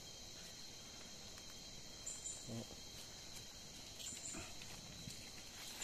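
Faint steady shrill chorus of night insects such as crickets, with two short vocal sounds about two and a half and four seconds in.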